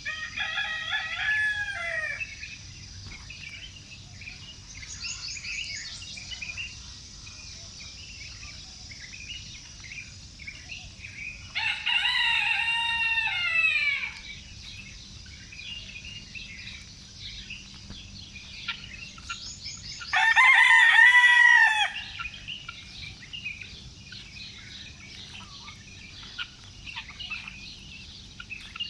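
Rooster crowing three times, each crow about two seconds long and falling in pitch at the end, over steady chirping of small birds.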